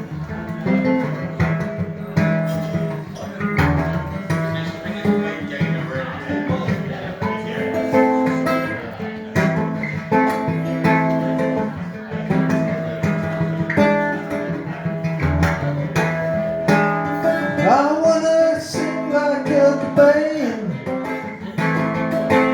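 Acoustic guitar played solo as a song's intro, a run of strummed and picked chords. Near the end a short wordless sung line glides over it.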